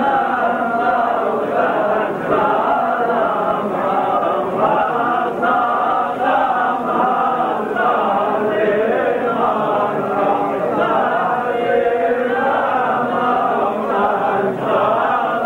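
A group of men chanting together without pause, a funeral lament in Lebanese zajal verse, many voices wavering over one another.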